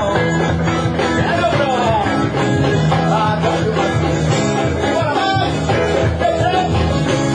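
Live rock band playing a loud song: distorted electric guitars over a steady drum beat.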